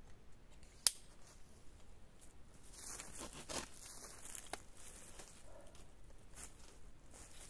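Red-handled folding pruning saw: a sharp click about a second in, then a few scraping strokes as the curved blade cuts into a thin dry branch, with lighter knocks later.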